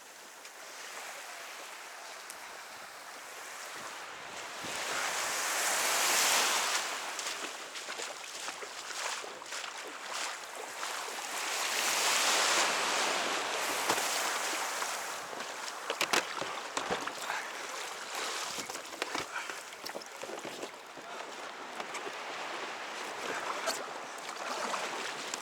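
Surf washing onto a beach: a steady wash of waves, with two bigger waves surging in and falling away, and scattered small knocks and clicks.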